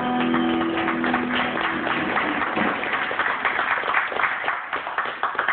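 A small band's music ends on a held chord, then a small audience claps for about the last three seconds.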